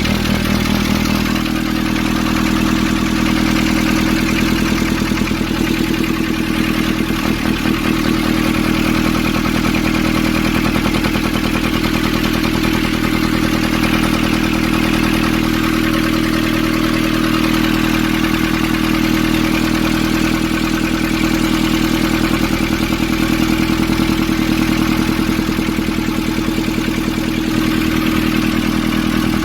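Nissan ZD30 four-cylinder diesel engine of an Urvan van running steadily at idle.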